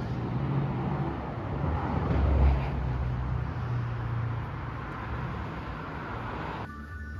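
City street traffic: a steady wash of road noise with cars passing, loudest about two and a half seconds in. Near the end it cuts off suddenly to a quieter room with a few faint steady tones.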